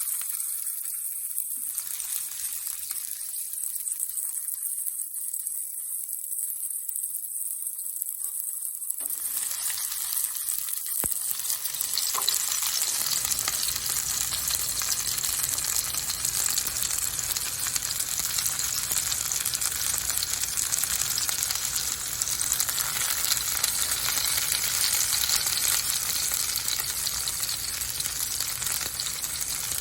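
Chicken thigh pan-frying in oil in a frying pan, sizzling steadily. The sizzle thins to a high hiss for the first several seconds, then grows fuller and a little louder from about nine to thirteen seconds in.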